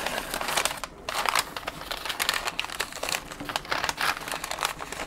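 Butcher paper crinkling and rustling in quick, irregular crackles as it is folded and wrapped around a steak.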